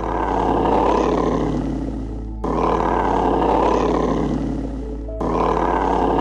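A loud, rough animal roar, heard three times back to back, each take fading and then cut off abruptly by the next, over steady background music.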